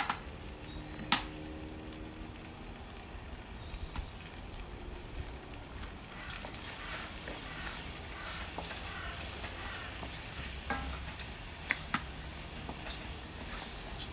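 Pieces of goat meat frying and sizzling in a pan as they are stirred with the thakali spice mix, with one sharp knock about a second in and a few lighter clicks near the end. The sizzle grows stronger from about halfway through.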